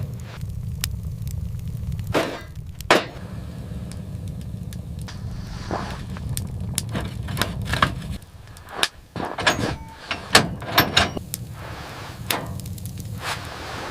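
A series of sharp, separate knocks and impacts over a low steady rumble. The rumble drops away about eight seconds in, and the knocks come thicker and quicker near the end.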